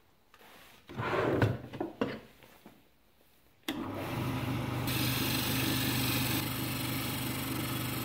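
Brief rustling and knocks, then a wood lathe starts with a steady motor hum. About a second later a turning gouge begins cutting the spinning black locust blank, giving a steady hissing cut over the hum.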